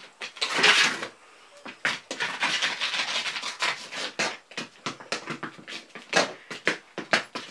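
Quick, uneven panting breaths, several a second.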